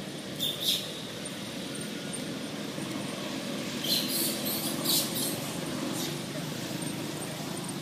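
Steady low outdoor rumble, with short high-pitched squeaks or chirps twice: a pair about half a second in and a cluster around four to five seconds in.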